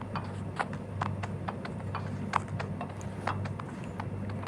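Footsteps on a hard floor: a run of short, irregular taps several times a second, over a steady low hum.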